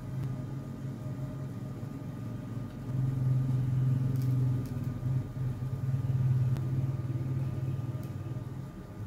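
A low, steady mechanical hum, growing louder about three seconds in and easing off near the end.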